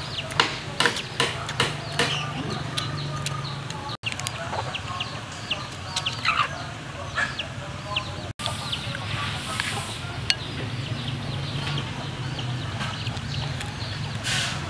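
Chickens clucking in a series of short sharp calls, over a steady low hum. The sound drops out for an instant twice.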